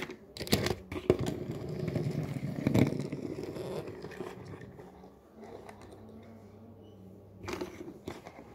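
Small die-cast toy cars handled and pushed across a plastic tray: wheels rolling and scraping, with a few sharp clicks as the cars knock against each other and the tray.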